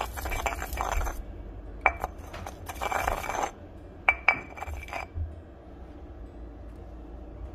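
Stone pestle grinding and scraping chilies in a granite mortar, crushing them for chili salt, with sharp stone-on-stone clinks: one about two seconds in and two close together about four seconds in. The pounding stops about five seconds in.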